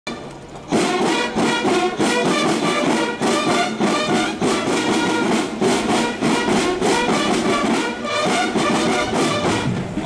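Military marching band playing a march, brass over snare drums keeping a steady beat. It starts suddenly a little under a second in.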